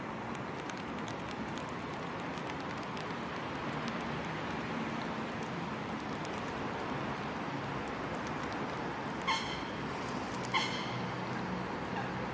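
Steady background hiss with a faint low hum, and a bird giving two short calls about nine and ten and a half seconds in.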